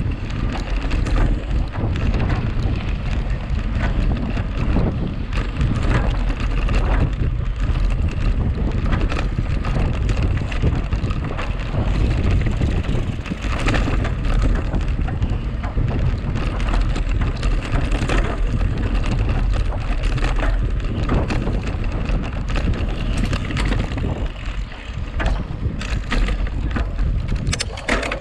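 Steady wind rumble on the microphone of a mountain bike ridden fast in a race, mixed with tyre noise from the track and frequent short knocks and rattles over bumps.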